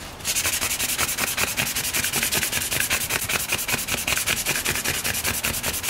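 320-grit sandpaper rubbed by hand over dried spot putty on an alloy wheel's lip, in quick, even back-and-forth strokes, several a second. The sanding smooths and feathers out the filler.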